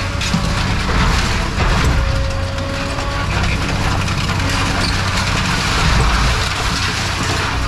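Heavy diesel scrapyard machine running steadily while scrap metal scrapes and grinds under its attachment.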